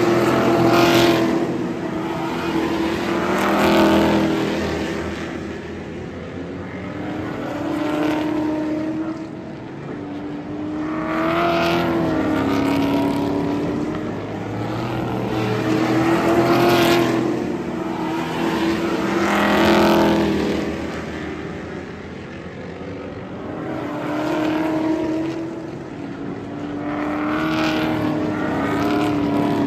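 Several stock car race engines running hard as a pack of cars laps a short oval. The sound swells loudly as cars pass close and fades between passes, over and over, with the engine pitch bending up and down.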